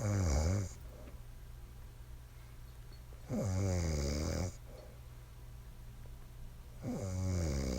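A woman snoring loudly in her sleep. There are three snores, each about a second long and about three and a half seconds apart, and the first is already under way at the start.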